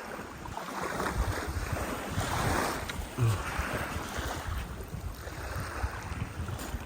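Wind buffeting the microphone over small lake waves washing and lapping, with swells of water hiss twice.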